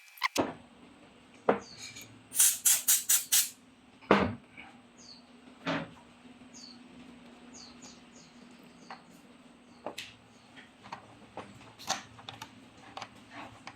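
Clicks and knocks of small parts and tools being handled during an electronics repair, including a quick run of about six clicks a few seconds in, over a steady low hum. Short high chirps come and go faintly in the background.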